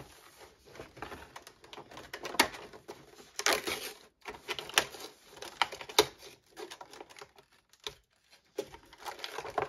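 Fingers picking, prying and tearing at a cardboard advent calendar door and its packaging: irregular scratching and crackling with a few sharper snaps.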